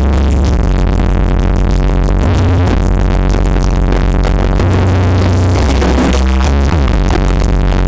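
Electronic dance music played loud through a stacked carnival 'sound horeg' sound system, with a heavy, booming bass that dominates the mix.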